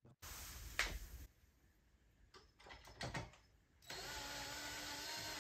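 Cordless drill/driver running in two short bursts as it drives in the coin mechanism's mounting screws: about a second near the start and again for the last second and a half, with a few light clicks between.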